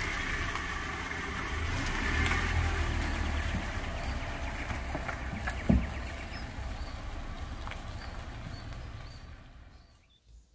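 Steady low rumble of motor-vehicle noise with a broad hiss and one sharp knock about halfway through, fading out near the end.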